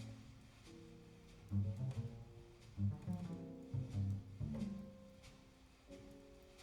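Jazz trio recording played back through Sound Lab G9-7C electrostatic loudspeakers and picked up in the room, with a double bass playing separate notes in a slow line over lighter, higher tones and faint clicks.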